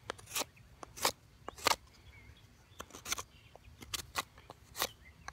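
Knife blade shaving a cedar stick: a series of short, crisp scraping strokes, one every half second to a second, each taking off a curl of wood.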